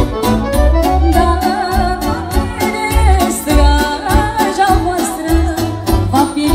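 Live manele band music: a woman singing over a steady dance beat with bass and percussion, with a clarinet playing the melody.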